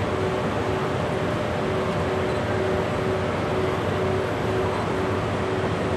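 EF81 electric locomotive standing at the platform with its equipment humming steadily, mixed with the general noise of a crowded station platform. A tone repeats in short, even pulses over the hum.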